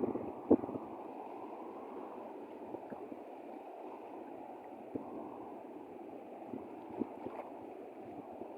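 Steady rush of sea water, with a sharp knock about half a second in and a few fainter knocks later.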